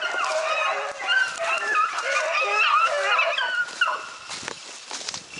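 A pack of beagles baying in full cry on a running swamp rabbit, many voices overlapping. A single sharp crack comes about four seconds in, and the baying breaks off after it.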